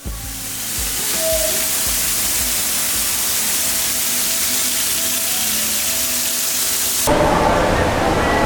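Steady hiss of heavy rain, with faint music underneath. About seven seconds in it cuts suddenly to a rougher rushing noise like wind on the microphone.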